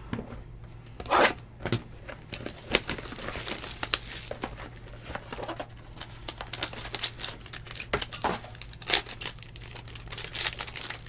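A Topps Tier One baseball card box being opened by hand and the foil pack wrapper inside torn and crinkled: irregular crackling and rustling, with a few louder rips scattered through.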